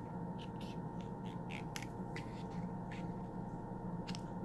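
Small scissors snipping through the leathery shell of a ball python egg: a handful of short, faint cuts spread through, over a steady low hum.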